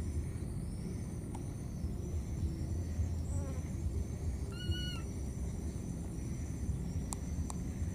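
Insects chirping in a steady, repeating pattern over a low rumble. About halfway through comes one short, high-pitched call.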